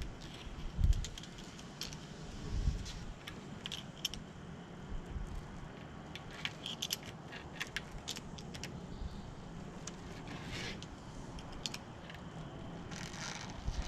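Scattered light clicks and small metallic taps from hand work on a door screen, with a few low thumps early on and two short rustles in the second half.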